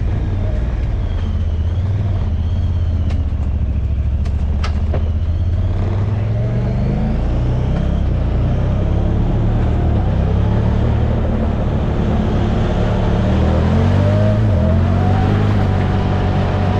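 Honda Talon side-by-side's turbocharged engine running as it drives a rough dirt trail, its pitch shifting with the throttle and climbing over the last few seconds. A few sharp clicks come about three to five seconds in.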